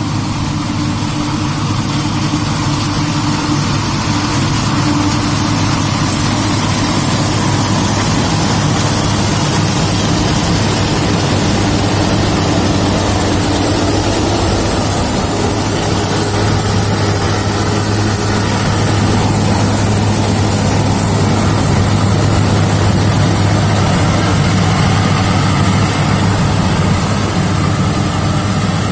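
Rice combine harvester running steadily, a constant low engine hum with machinery noise over it.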